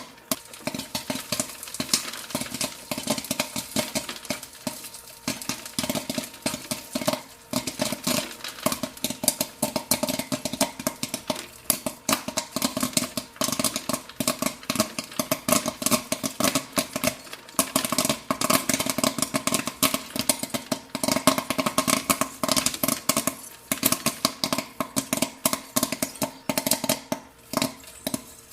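Popcorn kernels popping in quick, dense, irregular succession, many pops a second, over a steady hum.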